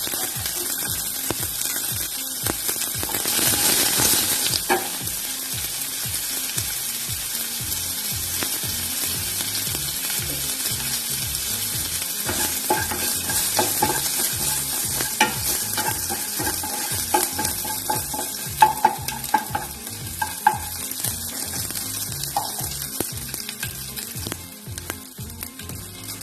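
Curry leaves, mustard seeds, green chillies and grated ginger sizzling in a little hot oil in a small kadai, a tadka being fried while it is stirred. The sizzle swells about four seconds in, and through the second half there are short scrapes and sharp clicks of the spoon against the pan.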